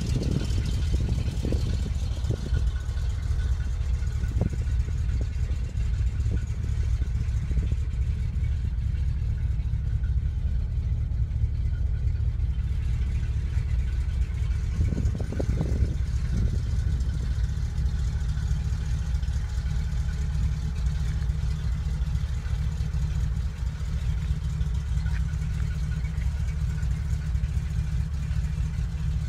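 An engine idling steadily, a low, even hum. A few short knocks come in the first few seconds and again about 15 seconds in.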